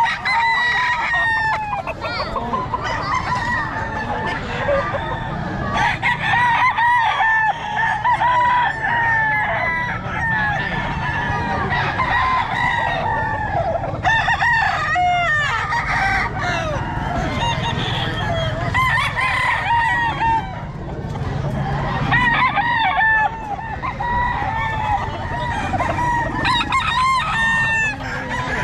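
Many roosters crowing over one another, one call starting as another ends, with no break.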